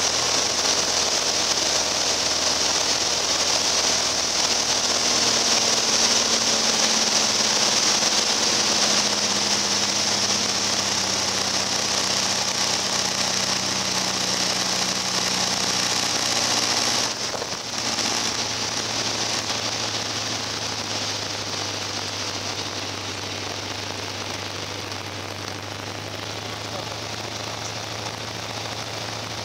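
Inside the cabin of a Piper Cherokee Arrow light aircraft on final approach and landing: the piston engine and propeller run at low power under a loud rush of air. After a brief break partway through, they settle to a lower, quieter drone as the aircraft rolls out on the runway.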